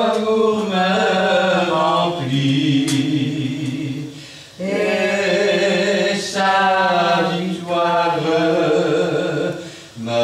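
A hymn sung slowly in long held notes, with no instruments standing out, in two phrases broken by a short pause about four and a half seconds in and another near the end.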